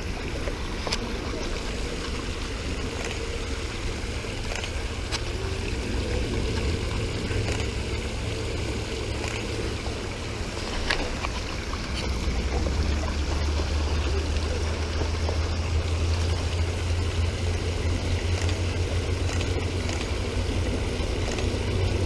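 Steady rush of a small waterfall and shallow creek running over rocks, with a low rumble underneath that grows louder about halfway through, and a few faint knocks.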